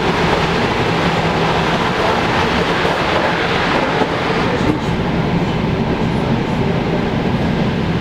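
Steady running noise of a moving electric train heard from inside the carriage: wheels rolling on the rails with a continuous rumble.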